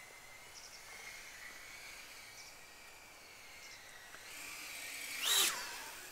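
FPV quadcopter's motors spinning 3.5-inch eight-blade props, a faint steady high-pitched whine with the drone at a distance. From about four seconds in it grows louder, up to a brief loud whoosh with a quick pitch change as it passes just after five seconds.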